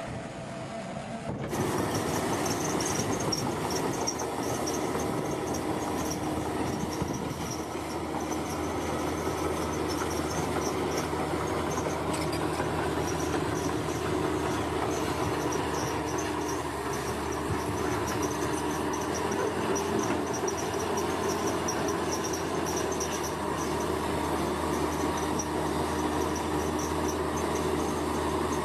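Heavy construction machinery running steadily, a diesel engine hum under a rumble of work noise, with a high, pulsing chirp like insects over it.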